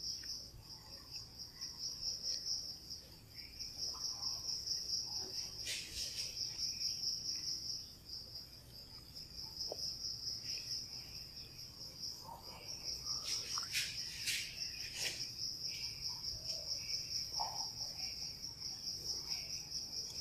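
A steady, rapidly pulsing high insect trill, which dips briefly about eight seconds in. A few short scratches of chalk on a blackboard cut through it, once about six seconds in and several times between about thirteen and fifteen seconds in.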